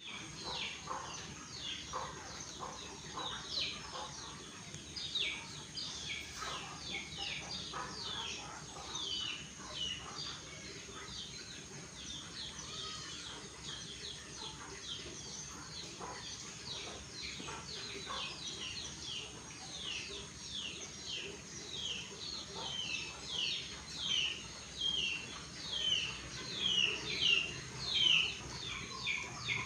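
Small birds chirping: a steady run of short, quickly falling notes, several a second, growing louder over the last few seconds.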